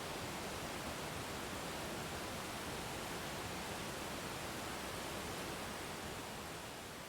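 Steady, unbroken rush of falling water from a waterfall, starting to fade down near the end.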